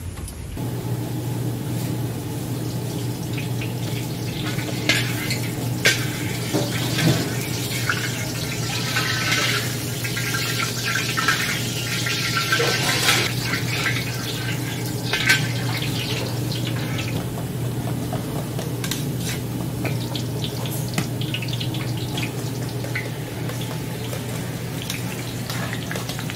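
Large wok over a gas burner: a steady low hum and hiss of the burner and heating oil, with a metal wok spatula scraping and clinking against the steel.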